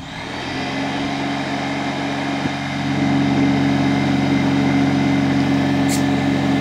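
Portable air compressor starting up and running steadily, pumping air into the PVC launcher's pressure chamber. It grows louder about three seconds in.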